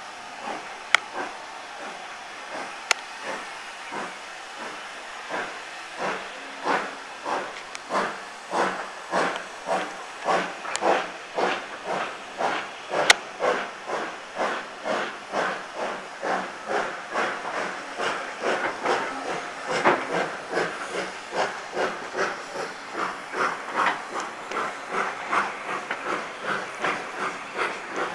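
Steam locomotive's exhaust chuffing as it pulls a train away from a standstill, heard from a carriage behind. The beats start faint a few seconds in and grow stronger and quicker, to about two a second, over a steady hiss of steam, with a few sharp clicks.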